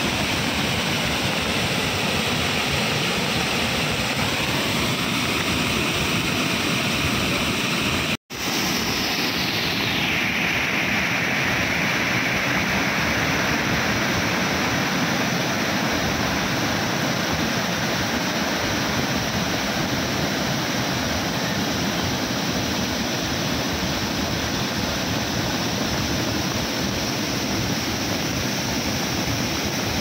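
Bhadbhada waterfall in high monsoon flow: a broad curtain of muddy water pouring over a rock ledge, heard as a steady, loud rushing. The sound cuts out for an instant about eight seconds in.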